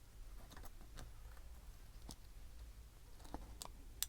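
Faint, scattered small metal clicks and taps from the parts of an American Lock 1100 padlock being handled during reassembly, about six separate ticks with a sharper one near the end.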